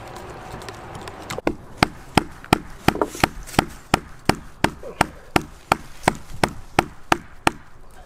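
A wooden baton striking the spine of a Victorinox RangerGrip 79 pocket knife blade, driving it down through a branch to split it lengthwise (batoning). The sharp knocks come in a steady run of about three a second, starting about a second and a half in and stopping near the end.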